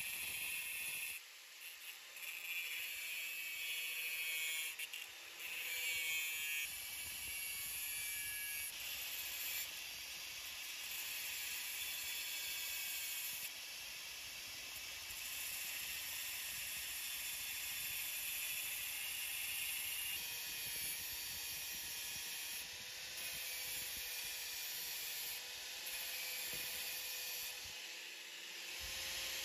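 MIG welder laying weld to build up a damaged crankshaft tone ring: a steady hiss.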